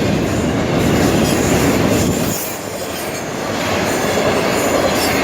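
Long freight train of intermodal and manifest cars rolling past at track speed: steady rumble and clatter of steel wheels on the rails, with a faint high wheel squeal at times. The loudness dips briefly about halfway through, then comes back.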